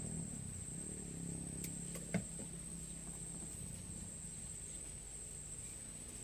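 Steady high-pitched insect drone, one unbroken shrill tone, with a single short click about two seconds in.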